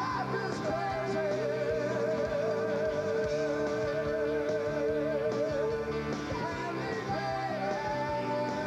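A man and a woman singing a rock duet live, holding long notes with vibrato over a band with electric guitar. A new, higher held note comes in near the end.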